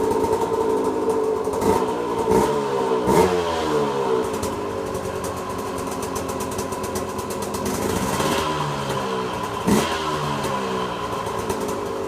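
2006 KTM 125 SX two-stroke engine with a freshly fitted Pro Circuit R304 shorty silencer, running at idle. The throttle is blipped three times in quick succession about two to three seconds in, and once more near the end. The exhaust note sounds exactly the same as with the stock silencer.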